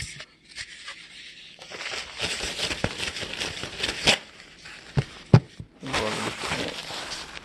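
Rustling and scraping handling noise in two stretches, with several sharp knocks, the loudest a little past halfway.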